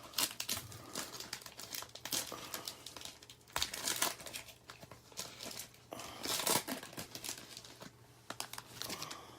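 Foil wrapper of a 2017 Panini Prizm Football hobby pack being torn open and crinkled by hand, in irregular crackly bursts that are loudest twice, about three and a half and six seconds in.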